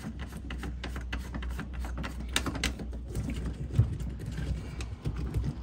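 Scattered plastic clicks and ticks from handling a yellow shore-power cord and its twist-lock plug at the boat's shore-power inlet, with two sharper clicks about two and a half seconds in, over a steady low hum.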